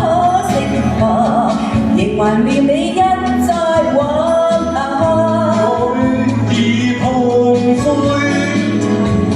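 Music: a song performed with accompaniment, its melody sung with vibrato over steady bass notes.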